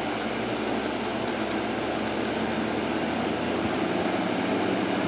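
A 1958 General Electric twin window fan, with its unit-bearing motors, running on high. Its blades and motors make a steady rush of moving air that grows slightly louder as the fan comes up to speed after being switched to high.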